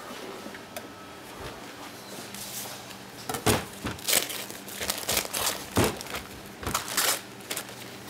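A paper butter wrapper crinkling and tearing as a block of butter is unwrapped by hand. After a quiet start, it comes as a run of sharp, irregular rustles from about three seconds in.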